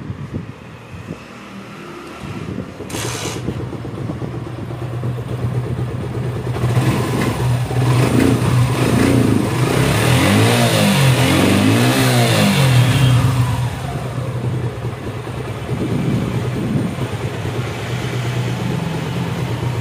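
Suzuki Gixxer SF single-cylinder engine starting up and running, revved up and down several times in the middle before settling back to idle. This is the test run after the camshaft rocker arm was replaced to cure a valve-type tapping noise.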